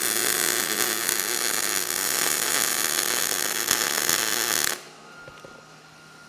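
Gas-shielded MIG welding arc crackling steadily for nearly five seconds as a bead is laid on steel tubing, then cutting off suddenly when the weld is finished; a faint hum remains afterward.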